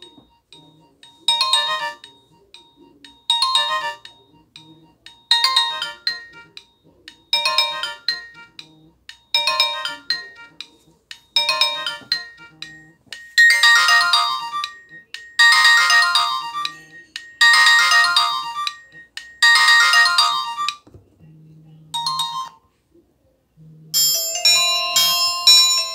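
Nokia 100 mobile phone ringtone playing through the phone's small speaker: a short tinny phrase repeating about every two seconds, stepping up louder about halfway through, then cutting off. After a brief pause near the end a different ringtone starts with a quicker run of notes.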